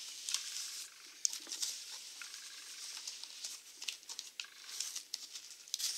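Cardboard box flaps and packing tape being pulled and handled by hand: a dry rustling and scraping of cardboard with many small clicks and crackles.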